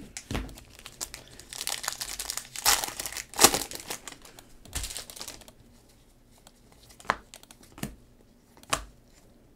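Trading card pack wrapper crinkling and tearing as it is ripped open, with the sharpest rips about three seconds in. The crinkling stops about halfway through, followed by a few soft, separate clicks of the cards being handled.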